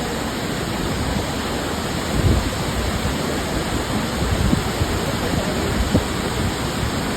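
Waterfall: a steady, loud rush of falling water, with a few brief low thumps of wind or handling on the microphone about two, four and a half and six seconds in.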